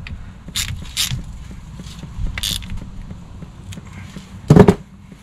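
Ratchet wrench clicking in a long run of quick strokes, with hand tools clinking a few times and one louder clank near the end.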